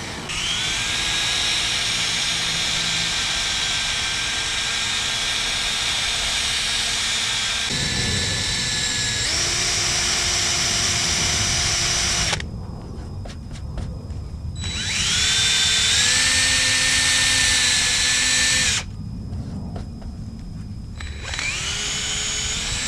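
Drill at low speed spinning a rubber eraser wheel against car paint to strip 3M double-sided tape residue, its whine shifting in pitch as the load changes. It stops twice and each time spins back up with a rising whine.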